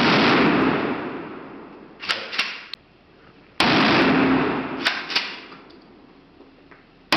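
Pump-action 12-gauge shotgun firing slow single shots, each loud report echoing and dying away over a couple of seconds. A second shot comes about three and a half seconds in, with the clack of the pump being worked in between. A third shot lands at the very end.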